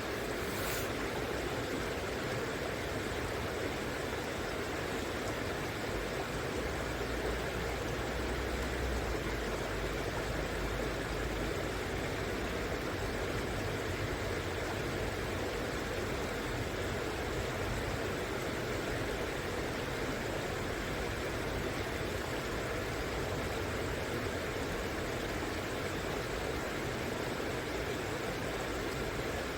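River water rushing steadily over its bed, a constant even rush of flowing water. A faint low rumble rises underneath it for a few seconds, about seven seconds in.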